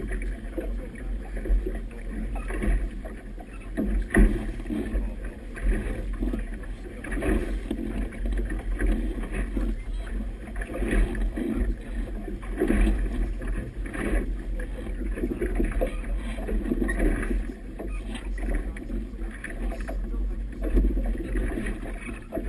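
Choppy river water slapping and splashing against a boat's hull, with wind rumbling on the camera microphone, in an irregular, uneven wash. There is one sharp knock about four seconds in.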